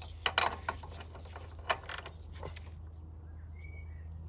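Several sharp, irregular metallic clicks of a spanner fitted to the lawn mower's spark plug as it is tightened, bunched in the first second and again around the middle.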